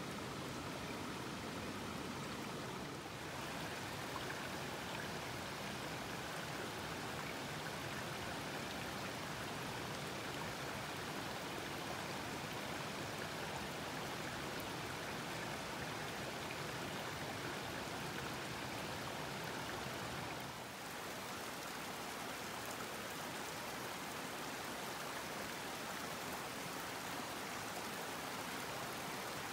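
Steady rush of flowing river water, the South Fork Skokomish River: an even hiss that dips slightly twice, about three seconds in and about two-thirds of the way through.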